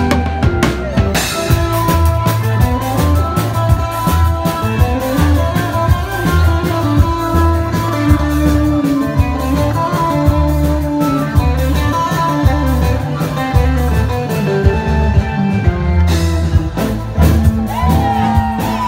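Live band playing tamazamesso dance music: drum kit and electric bass keep a steady, driving beat under guitar or keyboard melody lines.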